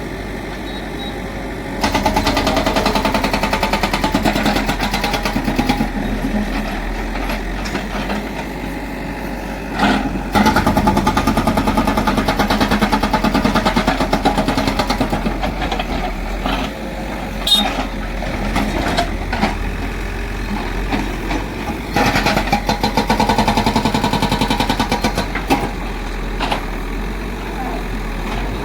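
JCB 3DX backhoe loader's diesel engine running steadily. It grows louder for several seconds at a time, three times: the engine speeding up as the machine works.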